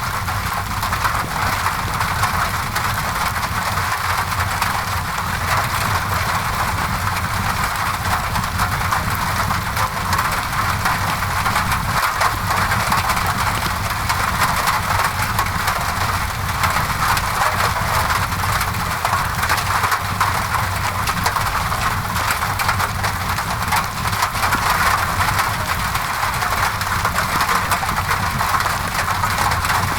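Steady rain on a window mixed with the soft crackling of a fireplace fire: an even wash of rain noise with a low rumble beneath and many small crackles throughout.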